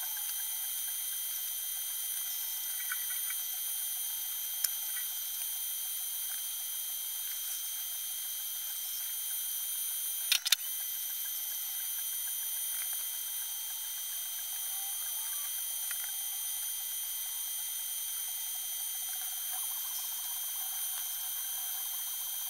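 Steady high-pitched electrical whine of several tones over a hiss, from the powered AC servo drive and motor under test. A sharp double click comes about ten seconds in, with the whine dropping out for a moment, and a few faint ticks of keypad buttons.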